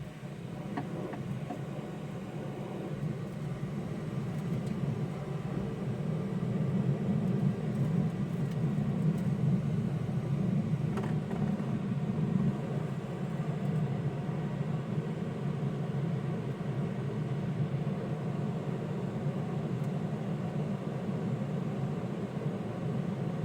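An air blower running steadily, blowing air down through a car's dash vent into the HVAC ducting to flush out a suspected mouse nest. It starts right at the beginning and builds over the first few seconds into a steady, deep rushing rumble.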